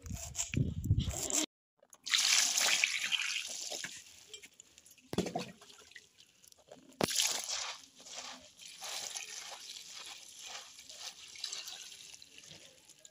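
Water trickling and dripping through a steel mesh colander of chopped radish greens as the greens are rinsed and turned by hand, with a louder gush of water about two seconds in and again near the middle. A knife chopping on a wooden board is heard in the first second or so.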